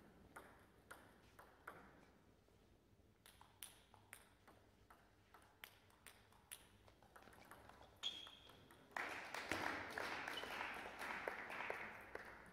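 Scattered light clicks and taps of a table tennis ball being bounced and handled between points. A brief high squeak comes about eight seconds in, and the background noise grows louder from about nine seconds on.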